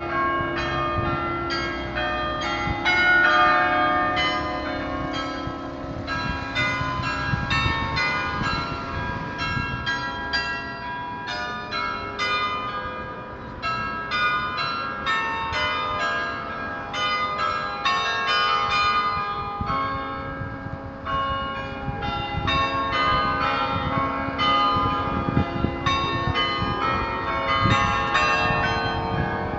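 Carillon bells being played as a tune, struck from a lever console, with several ringing notes a second overlapping one another.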